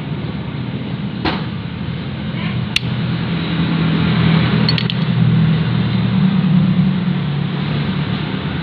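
A steady low mechanical drone, growing louder in the middle and easing off again, with a few light metal clicks as the steel clutch carrier plate and clutch shoes of a scooter's centrifugal clutch are handled.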